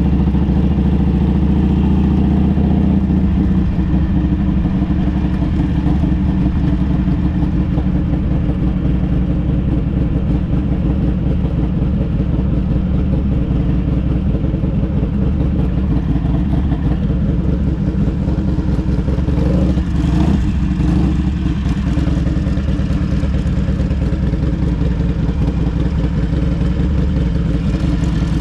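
Harley-Davidson trike's V-twin engine running steadily while riding.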